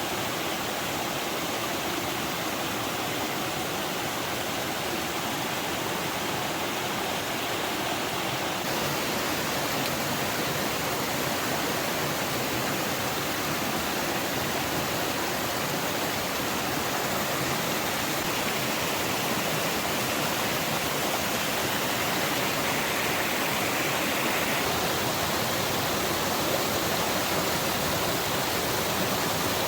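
Steady rushing of flowing water, an even hiss with no break.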